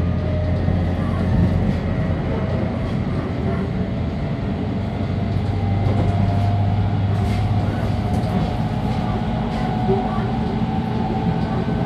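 Running sound inside a JR Kyushu 813 series 200-subseries electric motor car (KuMoHa 813-236) at speed: a steady rumble of wheels on rail with a steady whine from the running gear.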